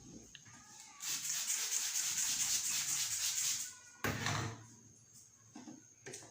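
Hands rubbing fast and hard over hair and scalp in a head massage, a scratchy rubbing for about three seconds. A brief sharp sound follows about four seconds in.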